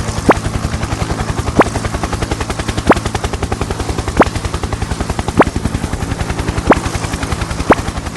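Helicopter sound effect: rotor blades chopping in a rapid, steady beat of about ten a second, with a short rising chirp about every second and a half.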